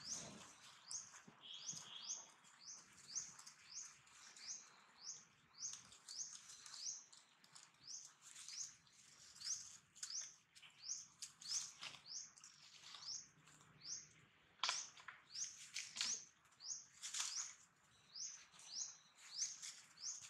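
A bird chirping over and over, short high sweeping notes about two a second, keeping an even rhythm throughout. A few louder scuffs and rustles in dry leaves come in the second half, where macaques are wrestling on the leaf litter.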